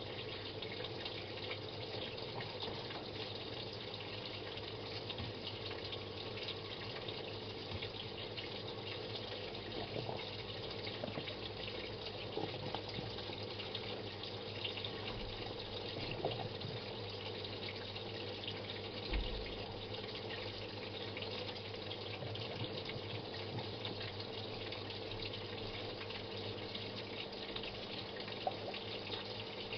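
Samsung WA89V washing machine with water running steadily through its tub over a steady low hum, at the changeover from wash to rinse. A single brief thump comes about two-thirds of the way through.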